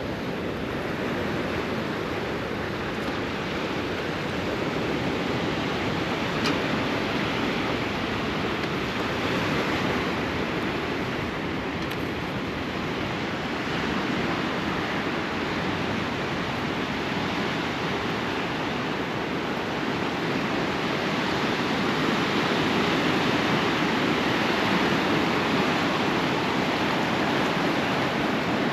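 Sea surf washing onto the shore: a steady rushing noise that slowly swells and eases.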